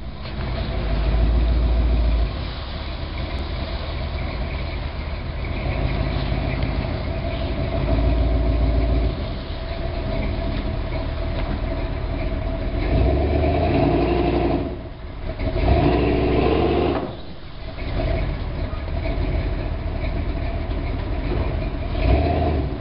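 Engine of a lifted 1973 GMC mud truck running under load as it pulls a tree branch down with a tow strap in two-wheel drive. It swells and eases several times, dropping off briefly about 15 and 17 seconds in.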